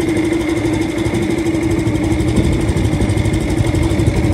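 A boat's motor running steadily, a constant hum over a low rumble.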